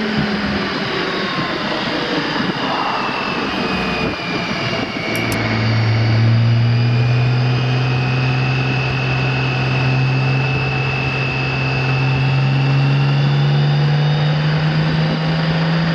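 BMW K1600 GTL's inline-six engine under way, with wind rushing over the microphone; about five seconds in the engine note comes up strongly and climbs slowly and steadily as the revs rise.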